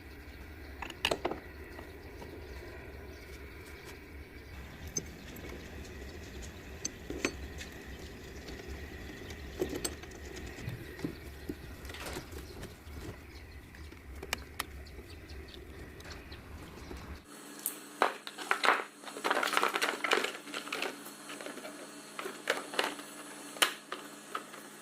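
Scattered metallic clicks and clinks of hand tools, with a low hum under them; a few seconds before the end the hum cuts out and a denser run of clattering and knocks follows.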